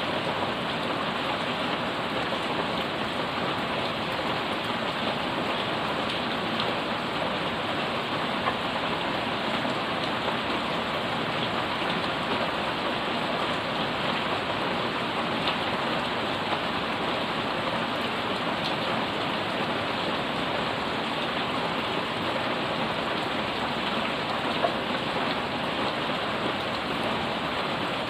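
Heavy, steady rain falling on a paved yard, puddles and leafy potted plants, with now and then a single louder drop ticking.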